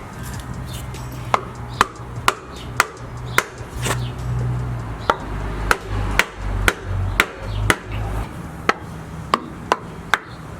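Hammer or mallet taps driving greased solid subframe bushings into a Nissan 350Z subframe: sharp strikes at about two a second, starting about a second in. A low steady hum sits underneath and stops near the end.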